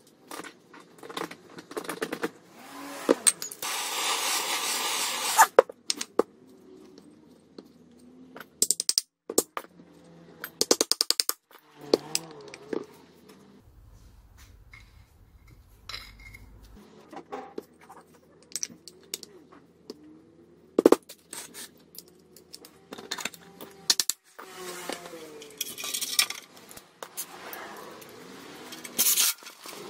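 Clinks, taps and scrapes of metal parts and hand tools being handled while a cut-off saw's motor and gear housing are reassembled. About four seconds in there is a steady rushing noise lasting about a second and a half.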